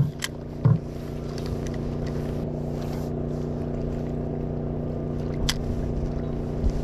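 An engine running steadily at an even pitch, a constant hum, with a sharp click just after the start and another about five and a half seconds in, and a short low bump of handling noise.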